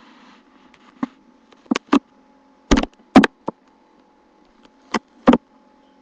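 A series of sharp, loud knocks, about eight at irregular intervals, some in quick pairs, over a faint steady hum.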